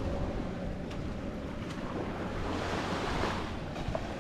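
Wind buffeting the microphone over small waves lapping at a sandy beach, with a louder rush of water washing up the shore about midway.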